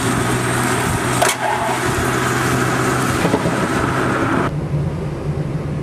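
A small car driving, its engine and road noise heard with heavy wind-like rush on the microphone. About four and a half seconds in the sound cuts abruptly to a duller, steady engine drone heard from inside the car's cabin.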